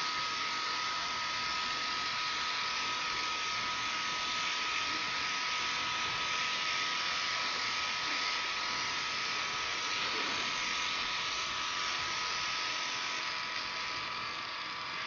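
Airbrush makeup system spraying liquid foundation: a small compressor's steady whine under an even hiss of air from the airbrush, a little quieter near the end.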